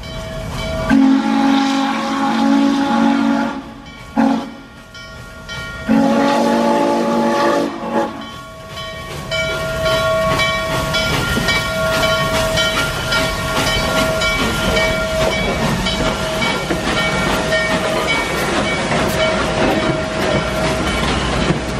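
Norfolk & Western J-class No. 611 steam locomotive sounding two long blasts on its steam whistle, the second falling away in pitch as it ends. The locomotive and its train of passenger cars then roll steadily past with steam hiss and wheel noise.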